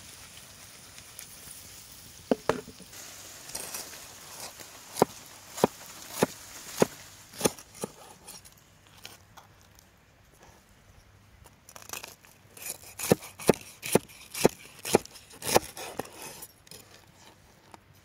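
Frying in a cast-iron skillet sizzles briefly. Then comes a series of sharp, crunchy clicks and knocks, about two a second, in two runs: a knife cutting through the crisp breaded crust of a pork tenderloin and striking a wooden board.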